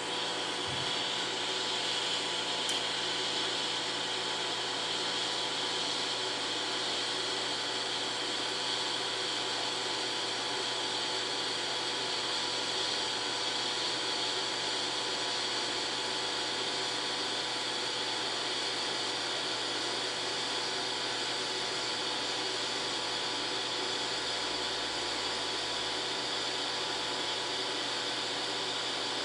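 DC TIG welding arc from a Forney Easy Weld 180 ST set to about 80 amps: a steady hiss with a faint steady hum as a bead is run on plate with filler rod.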